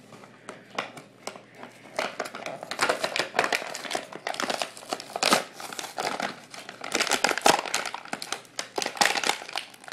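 Clear plastic blister packaging of a toy action figure crinkling and crackling irregularly as hands pry it open. It is sparse for the first two seconds, then becomes frequent and louder.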